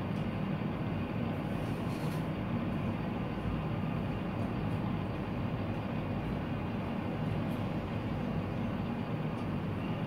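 Three-armed metal fidget spinner spinning on a tabletop, its bearing giving a low, steady rumbling whir through the table.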